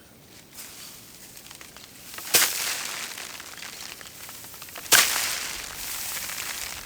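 A bundle of dried rice straw beaten against a small table to thresh paddy by hand: two sharp slaps about two and a half seconds apart, each followed by a rustle of straw and grains scattering.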